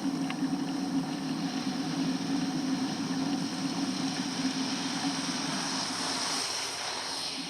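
Steady riding noise on a snowy road: tyre rumble and wind on the microphone. The low rumble fades and a hiss grows louder about six seconds in.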